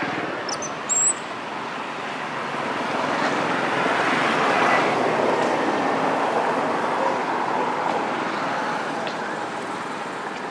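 Road traffic noise: a vehicle passing, its rushing sound swelling to a peak in the middle and then fading. A brief high-pitched chirp cuts through about a second in.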